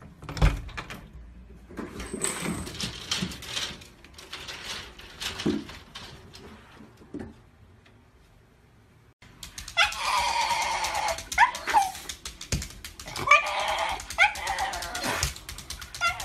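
A door knob clicks with a sharp knock, followed by scattered rattling and clicking. After a cut, a Shiba Inu dog makes a series of drawn-out, wavering whining howls, some long and some short.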